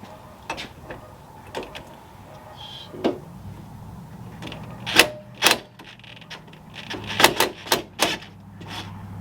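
Sharp metal clicks and knocks, about ten, irregular and bunched together in the second half, as a steering wheel puller fitted with a socket is worked against a stuck rear wiper arm.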